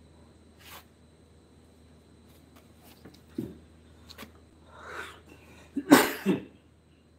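Scattered light clicks and knocks, then a person sneezing loudly about six seconds in.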